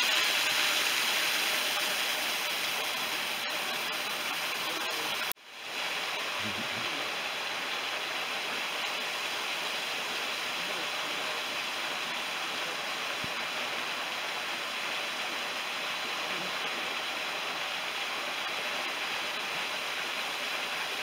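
Steady rush of a small waterfall spilling over rock ledges. The sound cuts out suddenly about five seconds in and returns within half a second.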